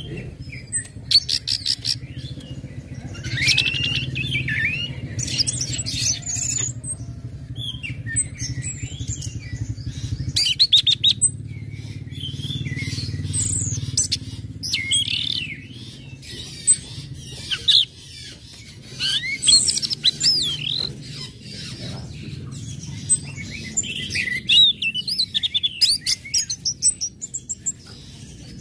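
Orange-headed thrush singing a varied song in short bursts: fast clicking trills, chirps and whistled phrases that slide up and down in pitch, under a steady low hum.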